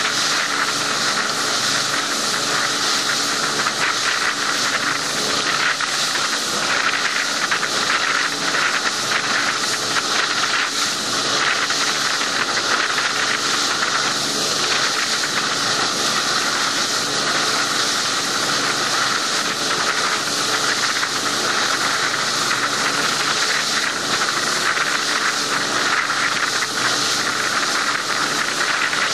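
Steady rushing hiss of wind and water streaming past a motorboat under way through choppy water, with a faint engine drone underneath.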